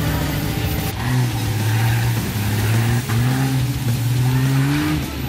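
Off-road 4x4 engine revving under load, its pitch rising in two long pulls with a short dip about three seconds in. There is an abrupt break about a second in.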